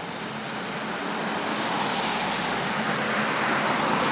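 Street traffic: a passing vehicle's road and engine noise, growing louder through the second half.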